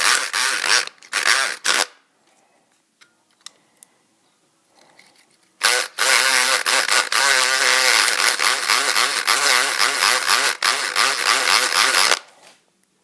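Homemade electric pick gun, converted from a Black & Decker electric screwdriver, buzzing in a few short bursts, then running for about six seconds as its pick rattles the pins of a six-pin cylinder lock. A few faint clicks come in between.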